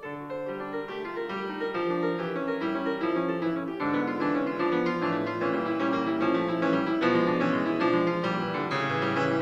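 Solo piano music on a Petrof grand piano: a fast, dense passage of many notes that swells louder over the first couple of seconds and then stays strong.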